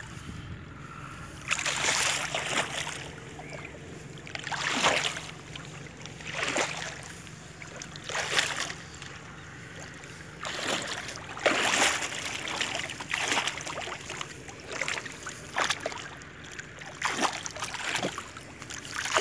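Hands slapping and splashing muddy water near the bank, about ten splashes one every second or two, beating the water to drive fish toward a net.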